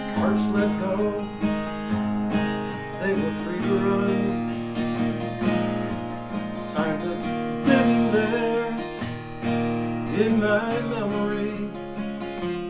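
Steel-string acoustic guitar strummed in a steady rhythm, with a man's voice singing over it in phrases.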